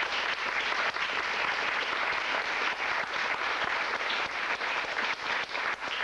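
Theatre audience applauding, a dense steady clapping right after a song ends.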